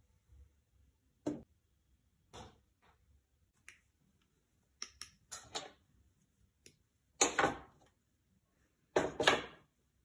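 Pliers and thin metal being handled on a metal worktable: scattered light clicks and knocks, then two louder, half-second scraping rattles about seven and nine seconds in.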